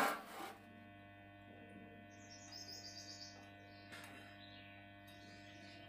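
A steel plate clatters into a square-tube frame and the noise dies away about half a second in. A faint, steady electrical hum follows, and a bird chirps a quick run of high notes around the middle.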